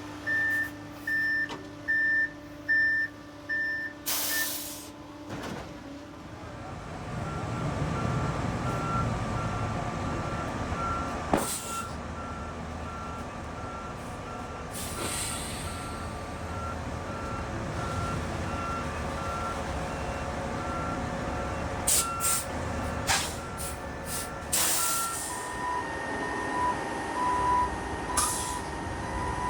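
Concrete mixer trucks backing up: a reversing alarm beeps steadily over the diesel engine, with a different-pitched alarm taking over after a few seconds and again near the end. Short air-brake hisses come about four seconds in, in the middle, and several times in quick succession towards the end.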